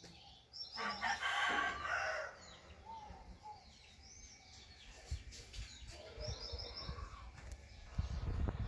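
A rooster crows once, about half a second in, a rough call lasting about a second and a half. Small birds chirp around it.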